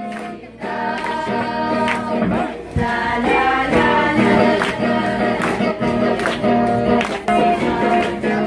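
A group of voices singing a Filipino folk song with string accompaniment and a steady clapped beat.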